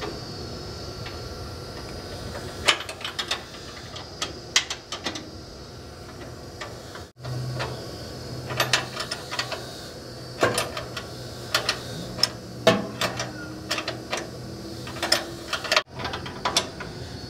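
Hand tools clicking and tapping against metal fittings while a steel brake line is bent and its flare nut tightened, in irregular sharp clicks with a few brief pauses.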